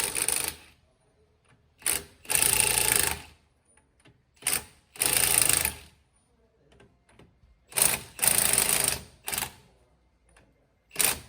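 Milwaukee cordless 3/4-inch-drive impact wrench hammering lug nuts off a truck wheel, in short bursts of up to about a second with brief trigger blips between them.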